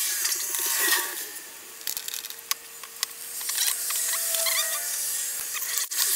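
Scraping and rubbing with scattered sharp clicks as the stock hard drive is worked loose from its bay inside an opened 27-inch iMac.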